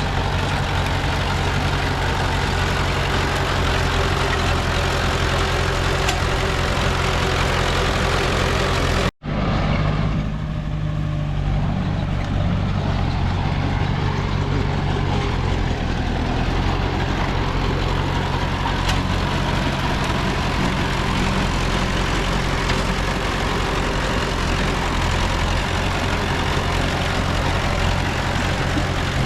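Diesel engine of a small crawler bulldozer running steadily while it works, with a brief dropout to silence about nine seconds in before the same engine sound resumes.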